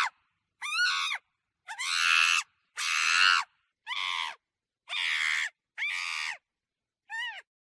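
Monkey screeching in a string of about seven short calls, each under a second, with clean silent gaps between them. Several calls bend up and then down in pitch, and the last is brief and quieter.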